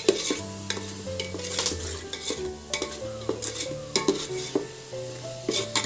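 A spoon stirring and scraping a masala paste as it fries in ghee and oil in a pot, with repeated sharp clinks against the vessel over a light sizzle.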